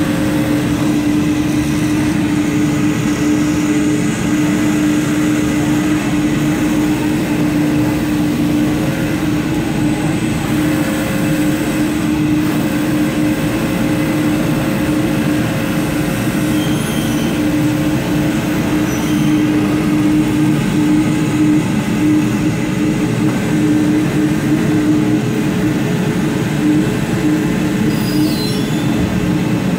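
Automatic cutting machine running continuously, a steady loud mechanical drone with a constant hum.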